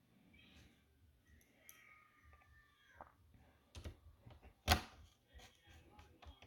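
Small screws and a screwdriver clicking and tapping against a laptop's plastic bottom cover: scattered light clicks, with one sharper click a little past halfway.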